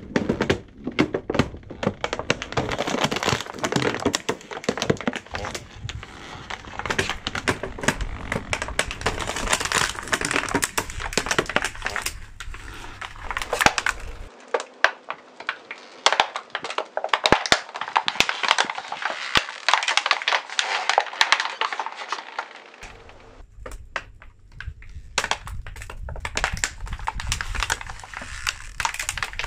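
Clear plastic packaging trays crackling and crunching as a car tyre rolls over and crushes them, a dense run of sharp cracks that pauses briefly near the end.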